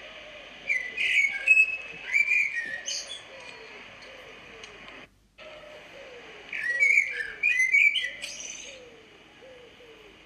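High, sharp animal chirps and whistles in two busy flurries, one starting about a second in and another from about six and a half seconds. Underneath runs a quieter string of short, repeated, falling whistles.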